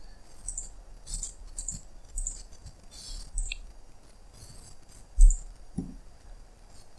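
Computer mouse clicking: short, light clicks scattered throughout, with one low thump a little past five seconds in.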